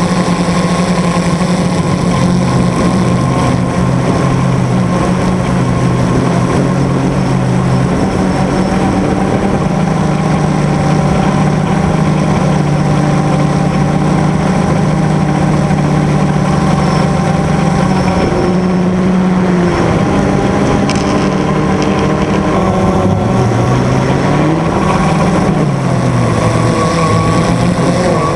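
An engine running steadily, its pitch holding level at first and then rising and falling several times in the last third.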